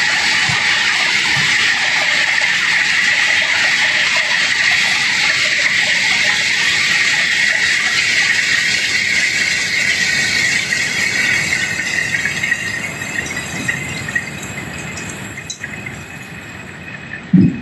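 Cobblestones pouring and sliding off the barge during unloading, a steady rushing clatter of rock that fades away over the last several seconds. A short low thump comes just before the end.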